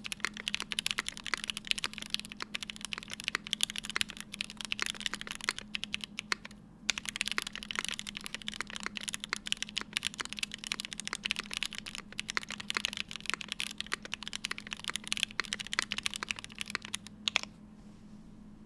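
Fast typing on a Vega mechanical keyboard with stock Gateron Oil King linear switches, an aluminium plate, GMK keycaps and no foam inside the case: a dense run of keystroke clacks. There is a short break about seven seconds in, and the typing stops shortly before the end.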